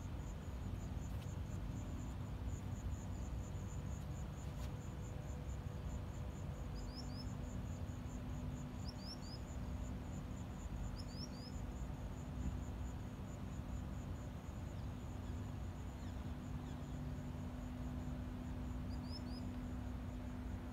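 Crickets chirping outdoors at dusk in a steady, fast-pulsing high trill, with a few short high chirps in twos and threes, over a steady low hum.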